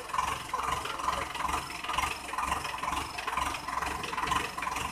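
Sonalika DI 750 tractor's diesel engine idling.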